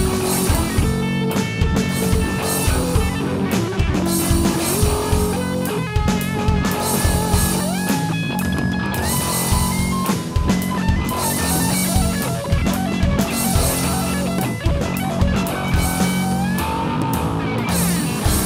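Instrumental hard-rock passage: a guitar lead of held notes with slides and bends over a steady drum-kit beat, with no vocals.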